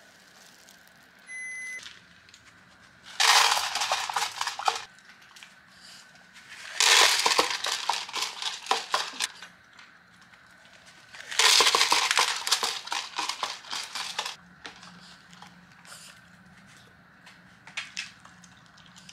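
A Mameshiba Inu crunching dry food from its bowl, in three bouts of rapid crunching a few seconds long, with short pauses between.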